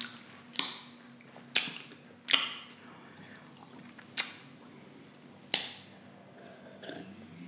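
Close-miked wet mouth smacks from chewing ribs and sucking sauce off fingers: about five sharp smacks, roughly a second apart, over a low steady hum. Near the end comes a fainter sip from a plastic cup.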